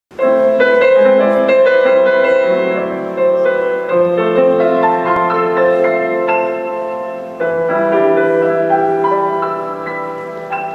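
Grand piano playing a slow introduction to a song, chords struck and left to ring, the playing easing off toward the end.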